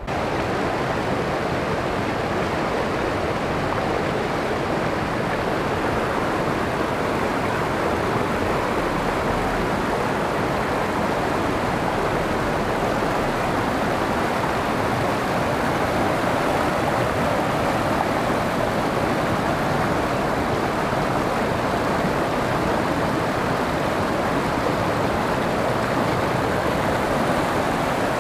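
Fast mountain river rushing over and around boulders in shallow rapids: a steady, unbroken rush of water.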